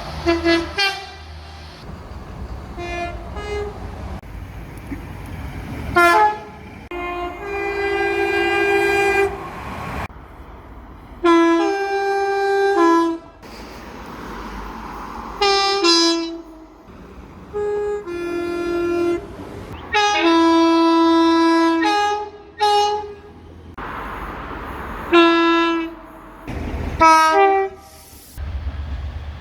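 Train horns sounding again and again: a string of short toots and longer held blasts, some stepping between two close notes. A low rumble lies under the horns at the start and near the end.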